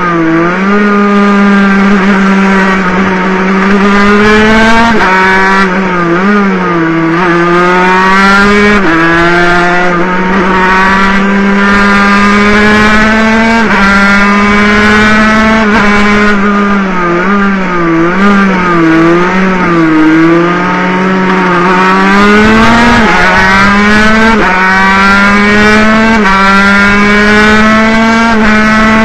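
Water-cooled 50cc two-stroke racing motorcycle engine heard onboard, running hard and high in the revs. Several times its pitch dips and then climbs back up, as happens when the rider shifts gear or eases off for a corner.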